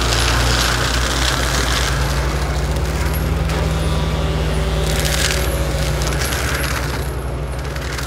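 Cat 314D track excavator's diesel engine running steadily under load while its brush-cutter head shreds brush, with bursts of crackling and snapping debris at the start and again about five seconds in.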